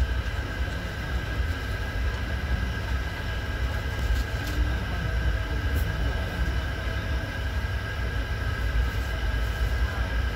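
Steady low rumble of an express train moving, heard from inside its air-conditioned coach, with a steady high whine over it.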